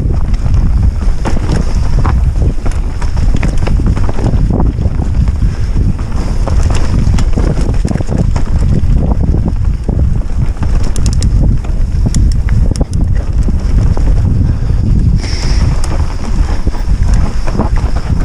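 Wind buffeting a helmet-mounted camera's microphone during a fast mountain-bike descent, over the rumble of tyres on a dirt trail, with scattered clicks and rattles from the full-suspension bike. A brief high squeak about fifteen seconds in.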